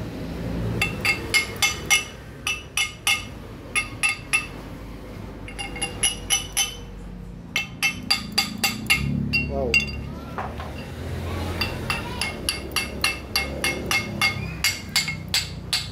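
Hammer tapping on a steel sleeve used as a driver to seat a part in a steering rack housing. A quick series of sharp metallic knocks comes in short runs of about three a second, with pauses between.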